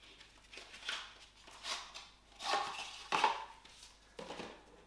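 A cardboard board-game box being opened and its contents handled: about five short scraping, rustling swells of cardboard and packaging, the loudest in the middle.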